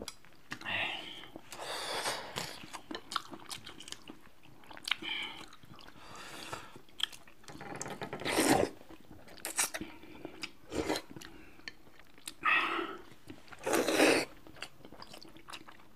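Close-miked eating of mixed noodles: chewing and small mouth clicks, with several louder noisy bursts, the loudest about eight and a half and fourteen seconds in.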